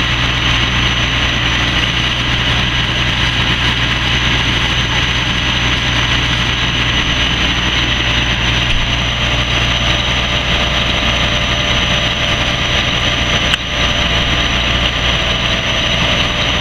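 Fire engine running steadily at pumping speed, supplying the charged hose lines, with a steady hiss over its drone.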